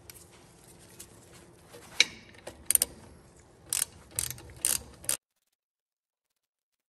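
Ratchet wrench clicking in short irregular bursts as it turns a wheel cylinder mounting bolt on a drum brake backing plate, stopping abruptly about five seconds in.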